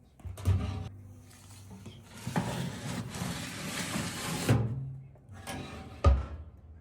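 Kitchen handling sounds: a knock, about two seconds of scraping or rubbing ending in a knock, then a dull thud.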